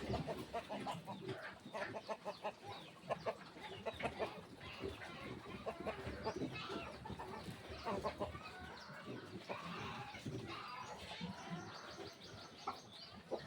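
Chickens clucking, a steady run of short, repeated calls.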